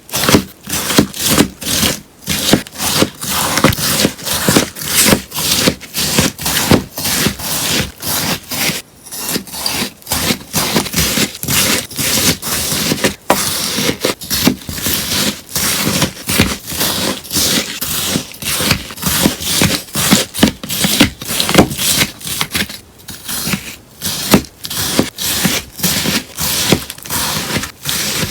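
Scissors cutting through melamine sponge in repeated crisp snips, about two a second.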